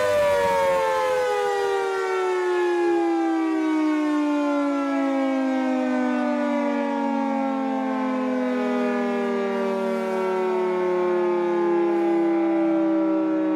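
Federal Signal 2T22 two-tone outdoor warning siren sliding slowly down in pitch as its rotors slow. The drop is fast at first and then more and more gradual. The close recording makes it loud and overblown.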